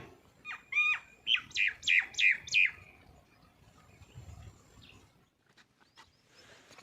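A bird calling a quick run of about seven sharp, high notes, each sweeping downward, over roughly two seconds near the start; after it only faint scattered ticks remain.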